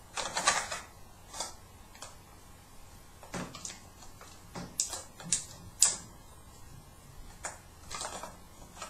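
Irregular sharp clicks and clacks of a magazine being fumbled against an airsoft pump-action shotgun's magazine well while someone tries to push it back in.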